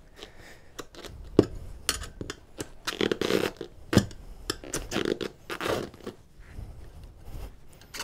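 Tyre levers scraping and knocking against a Honda C90's spoked steel wheel rim as the old tyre's bead is levered off, with rubber scraping and a few sharp clicks.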